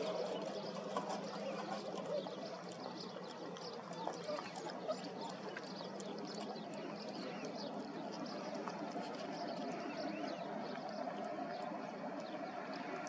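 Several puppies lapping and slurping from a bowl: a continuous patter of small wet clicks.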